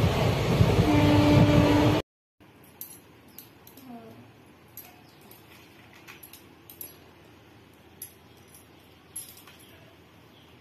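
Steady rumble of a moving passenger train, heard from inside the coach by an open window, cutting off abruptly about two seconds in. A quiet room follows, with faint scattered small clinks.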